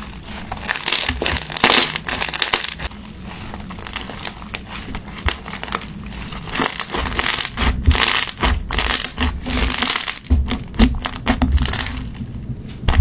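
Floam slime, packed with small foam beads, being squeezed and kneaded by hand, giving dense runs of crunchy crackling and popping that swell and ease in waves.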